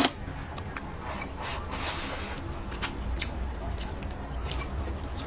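Close-miked eating sounds: a sharp click as it begins, then a run of short, scattered wet smacking and crunching clicks from chewing, over a low steady hum.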